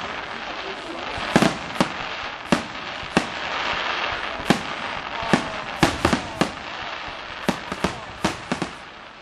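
Fireworks display: aerial shells bursting in an irregular series of about fifteen sharp bangs, coming faster in the second half.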